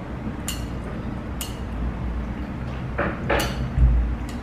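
Eating at a bowl of udon noodles with chopsticks: a couple of short clicks of the chopsticks against the bowl, then two quick slurps about three seconds in, followed by a low thump. A steady low hum runs underneath.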